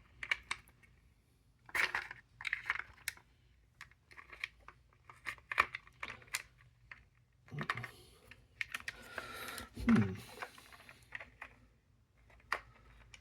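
Clusters of small clicks, taps and knocks from wooden puzzle-box pieces and a small metal sword being handled, turned and fitted, with a scraping rub and a louder knock about ten seconds in.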